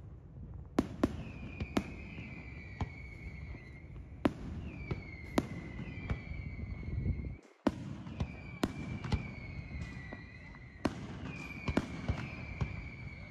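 Daytime aerial fireworks: sharp bangs of shells bursting at irregular intervals, at times two or three within a second. Many bangs are followed by a shrill whistle lasting about a second, dipping slightly in pitch and then holding steady. The sound cuts out for a moment about halfway through.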